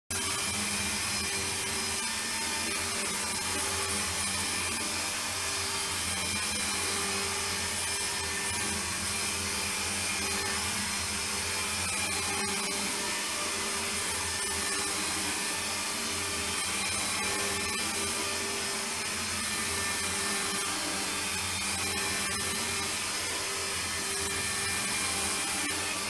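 iRobot Roomba 770 robot vacuum running, its vacuum motor and brushes giving a steady whir and hiss, with a few faint clicks.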